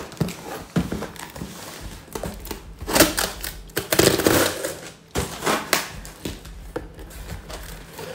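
A cardboard shipping box being torn open by hand: its sealing tape ripped and the cardboard rustling and knocking, in several noisy bursts with clicks between them, the loudest about three and four seconds in.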